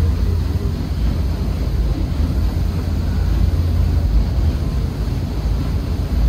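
Paddle steamer's paddlewheel churning through the water: a steady, heavy rumble of splashing and rushing water.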